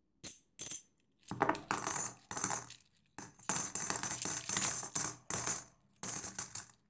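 Old circulation silver coins jingling and clinking against each other, with a bright high ring, in four spells separated by short pauses.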